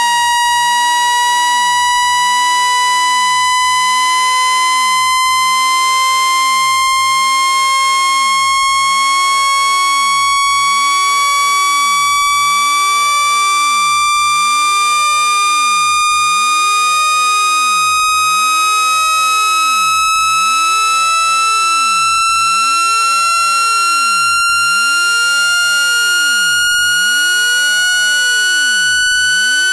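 Electronic speaker-cleaning tone: one continuous, steady-volume buzzy tone gliding slowly and evenly upward in pitch. It is played at full volume to vibrate water and dust out of a phone speaker.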